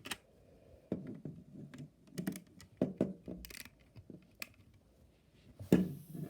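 LEGO bricks clicking and clattering as pieces are handled and pressed together: a series of sharp, irregular plastic clicks.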